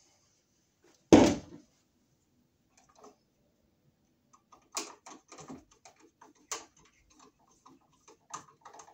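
One heavy thump about a second in, then from about halfway on a run of small irregular clicks and scrapes: wires being hooked around a single-pole light switch's terminal screws and the screws tightened with a screwdriver.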